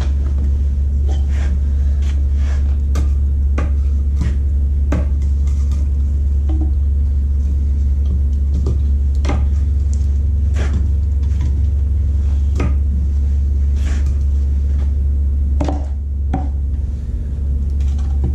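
Homemade pickaroons hooking into firewood logs, with the logs and a wooden slab knocking and clattering against each other and the concrete floor as they are lifted and dragged: irregular sharp wooden knocks about once a second, over a loud, steady low rumble.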